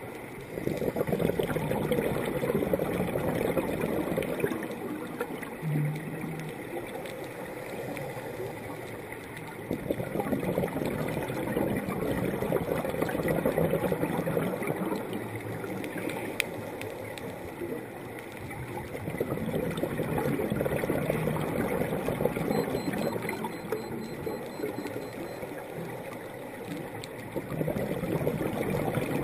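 Underwater bubbling from a scuba diver's regulator exhaust, heard through the camera housing. It comes in three long noisy stretches of several seconds each, with quieter gaps between them, and a fourth stretch begins near the end.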